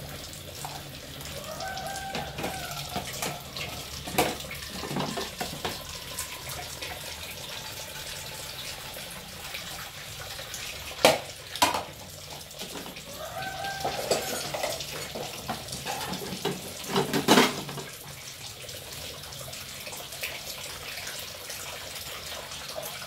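Tap water running into a sink while dishes are washed by hand, with a few sharp clinks of crockery, the loudest about halfway through and again later. Two drawn-out wavering tones come in near the start and again past the middle.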